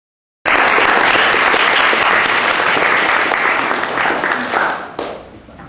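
Audience applauding. It starts suddenly and dies away over the last second or so.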